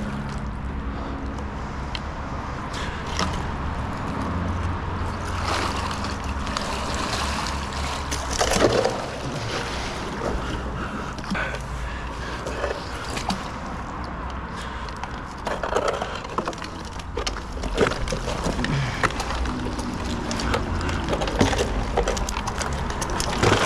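Canal water sloshing and splashing as a grappling hook and rope are hauled in through the water and silt, with a few louder splashes and a steady low rumble underneath.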